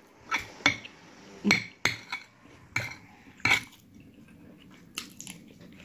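Metal spoon clinking and scraping against a ceramic plate while scooping rice and beans, about eight short irregular clinks.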